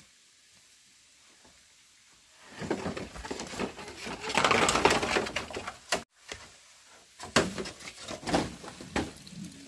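A long green bamboo pole being hauled over the ground, its leafy end and stalk scraping and rustling loudly for a few seconds, followed by a few separate sharp knocks.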